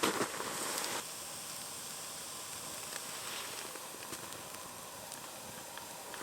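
Wood bonfire burning with a steady hiss and scattered small crackles, with a few louder knocks and crunches in the first second.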